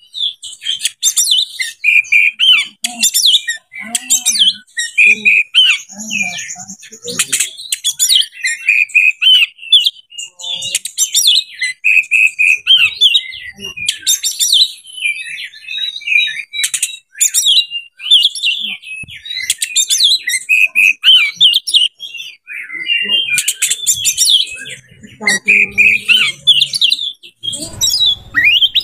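Oriental magpie-robin (kacer) in full breeding-condition song: a loud, fast, nearly unbroken stream of varied chirps, whistles and sharp clicks.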